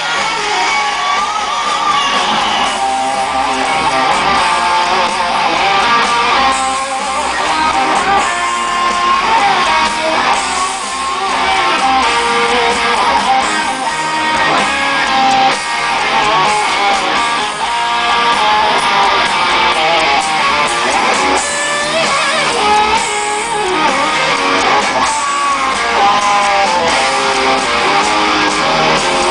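Live rock band playing through an arena sound system, heard from the crowd, with electric guitar out front and no vocals.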